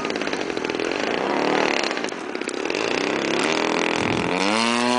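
Radio-control model airplane engine running, then revving up sharply about four seconds in and holding a steady high note at full throttle.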